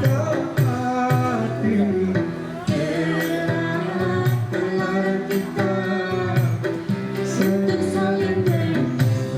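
Music: an Indonesian pop love song with instrumental accompaniment and singing, played at a steady pulse.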